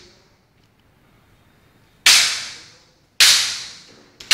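Bamboo kendo swords (shinai) striking, three sharp cracks: about two seconds in, again a second later, and once more at the very end, just after a light click. Each crack leaves a short echo.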